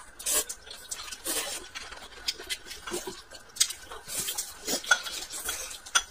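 Close-up eating sounds: a person slurping and chewing cold vermicelli noodles, with irregular wet mouth clicks and short hissy slurps, and chopsticks clicking against the plate and bowl.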